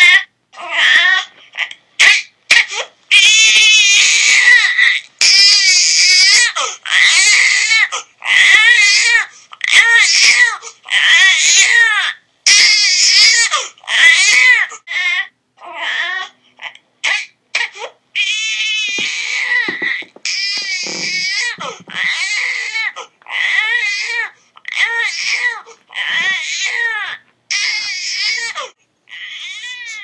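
Sound-effect recording of an infant crying hard: a long run of wavering wails about a second each, broken by short catches of breath. The cries ease to a somewhat softer level about halfway through.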